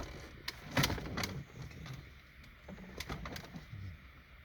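Plastic dash trim pieces being handled and fitted, giving a few sharp clicks and knocks, loudest about a second in and again about three seconds in, with a few short low hums among them.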